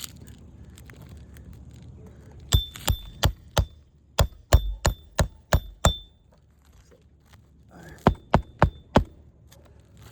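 Hammer striking a roof snake worked under an asphalt shingle, in three quick runs of blows (four, then six, then four), each blow sharp with a short metallic ring.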